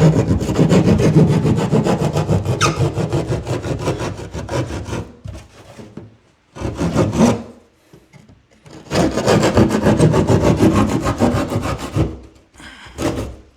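Handheld keyhole (drywall jab) saw cutting through a drywall panel in quick back-and-forth strokes. The sawing comes in four runs with short pauses between them.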